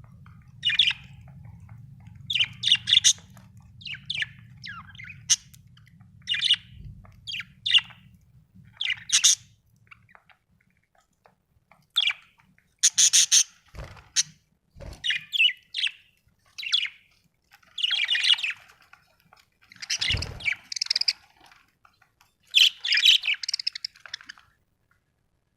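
Budgerigar chirping in short, irregular bursts of high chirps and squawks. A low hum lies under the calls for about the first ten seconds and then stops, and a few dull low thumps come in the middle.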